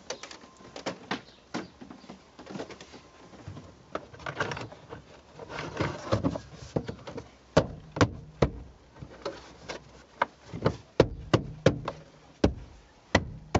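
Plastic interior trim panel of a car's rear pillar being pushed and pressed by hand while a cable is fed in behind it. It gives irregular sharp clicks and knocks that come thicker and louder in the second half, with rustling scrapes about four to six seconds in.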